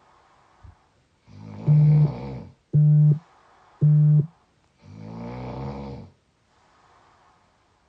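A person snoring in deep sleep: two long snores about three seconds apart. Three loud, short, steady beeps about a second apart, louder than the snoring, fall at the end of the first snore and just after it.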